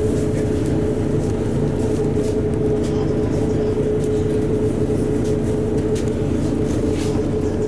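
LiAZ-4292.60 city bus's diesel engine idling while the bus stands still, heard from inside the cabin: a steady low rumble with a constant high hum over it.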